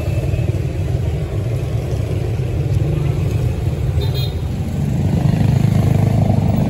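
Street traffic of motorcycle-sidecar tricycles, scooters and cars running slowly past: a steady low engine rumble that grows louder about five seconds in as a scooter passes close. A short high beep about four seconds in.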